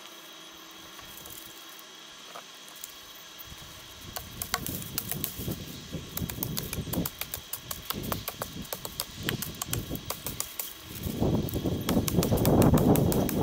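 Hand tools cutting into a bay tree's wood: irregular scraping, snapping strokes begin about four seconds in. A louder rushing noise takes over for the last couple of seconds.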